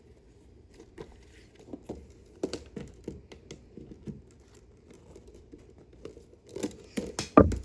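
A plastic Blu-ray case and disc being handled: scattered light clicks and taps, then a few louder knocks near the end.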